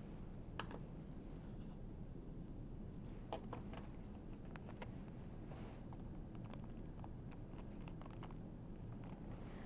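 Quiet room tone with a few faint, brief clicks and rustles: a sticker label being peeled from its backing and pressed onto a plastic IV piggyback bag.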